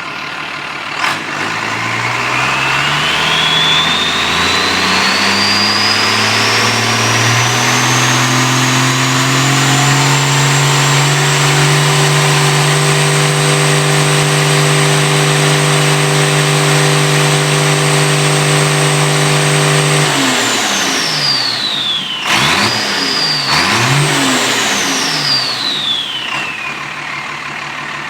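Freshly rebuilt International DT360 inline-six turbo diesel, timed at 24 degrees BTDC, revved up from idle over several seconds and held at high speed with a high turbo whine climbing with it. It then drops off, is blipped twice, and settles back to idle.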